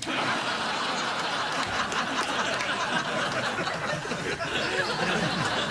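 Studio audience laughing loudly and steadily, starting abruptly right after the host's punchline.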